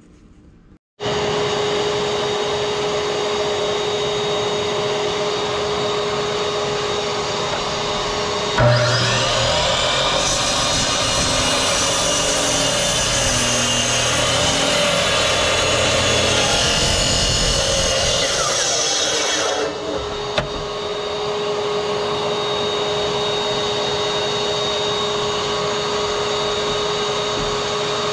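Miter saw crosscutting a white oak board: a steady motor drone starts about a second in, and a harsher, louder cutting sound with a wavering pitch runs for about eleven seconds as the blade goes through the wood. Afterwards the steady drone carries on.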